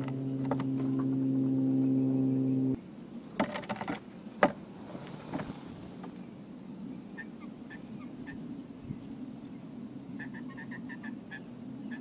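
A steady droning tone with overtones cuts off suddenly about three seconds in. A few sharp knocks follow, then scattered short high bird chirps that turn into a quick run of notes near the end.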